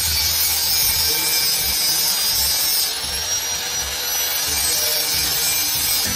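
Steady rasping, scraping noise of hand work on a motorcycle frame and bodywork, like sawing or rubbing, with a faint high whine.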